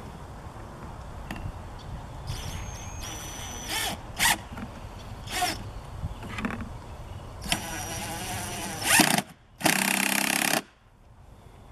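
Cordless drill running in several short bursts, fastening a gutter drop outlet to the roof edge with a screw; the last burst, near the end, is the longest and loudest.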